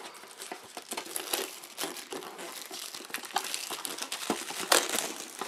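Clear plastic shrink-wrap being peeled and pulled off a cardboard model kit box: continuous crinkling and crackling, with a louder crackle near the end.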